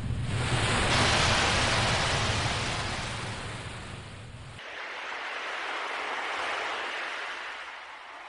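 Ocean waves breaking and washing in: one wave swells to a peak about a second in and fades away, then a softer second wave rises and falls. A low rumble under the first wave stops abruptly about halfway through.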